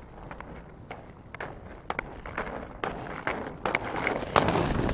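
Inline skate wheels rolling and scraping on asphalt, with scattered clicks, growing steadily louder as the skater comes up close, loudest near the end.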